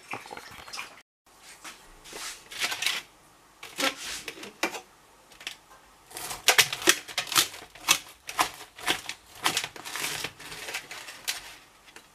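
Kitchen knife cutting through a glazed cake on a tray: irregular scraping and tapping strokes as the blade saws through the crust and knocks the tray, coming thicker and faster in the second half.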